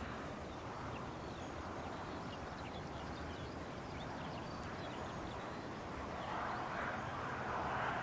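Birdsong in open country: many short high chirps and trills keep coming over a steady rush of wind on the microphone. The wind swells for the last couple of seconds.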